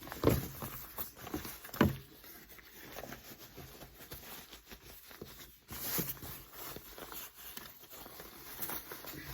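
Gloves being pulled onto the hands: irregular rustling and rubbing, with a few sharper knocks, the loudest near the start and about six seconds in.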